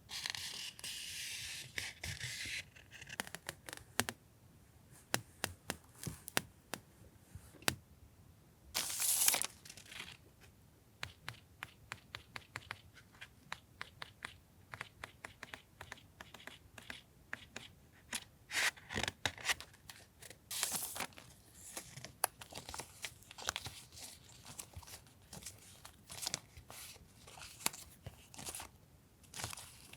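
Hands handling paper journaling materials and their packaging: a long tearing rasp in the first couple of seconds, more rustling bursts about nine, nineteen and twenty-one seconds in, and many small paper taps and clicks between.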